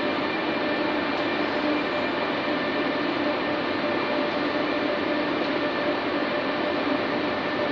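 Steady hum of electric trains standing at the platforms, their auxiliary equipment running: a constant wide hiss with several held tones and no change.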